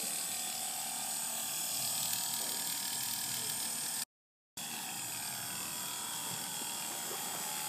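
Electric vibrating massager strapped to the back of a hand, its motor running with a steady buzz while it is worked over a man's back. The sound cuts out completely for about half a second near the middle, then carries on.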